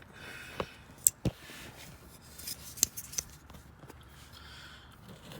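Small sharp clicks and light scraping of a metal pick working the terminal tabs of a plastic wiring connector, about half a dozen clicks in the first three seconds.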